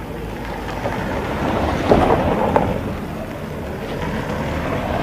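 A car driving along a dirt track, heard under wind rumbling on the microphone, the sound swelling about two seconds in.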